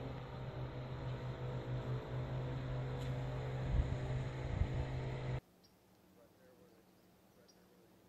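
A steady mechanical hum with a strong low drone and overtones, like a motor running, with a couple of bumps in the middle. It cuts off suddenly about five seconds in, leaving faint outdoor chirping.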